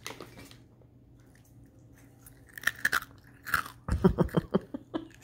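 Loud crunching as a person chews a crunchy falafel snack, made deliberately loud. A few crisp crunches come about two and a half seconds in, then a fast run of loud crunches from about four seconds in.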